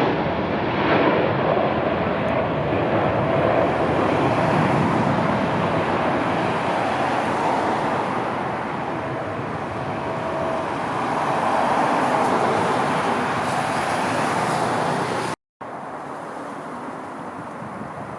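Jet engine noise from a heavy airliner landing: a loud steady rush with a faint high whine. It cuts off suddenly near the end, leaving quieter background noise.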